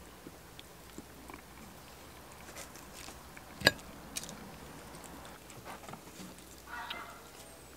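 Metal fork scraping and tapping on a ceramic plate while picking up rice and beans, with small clicks throughout and one sharp clink about halfway through.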